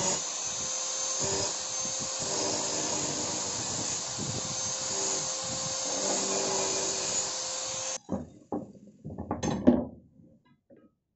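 Electric angle grinder with an abrasive cut-off disc cutting through 1/2-inch steel pipe: a steady whine with grinding noise that stops abruptly about eight seconds in. A few knocks and rattles follow as the cut steel pipes are handled.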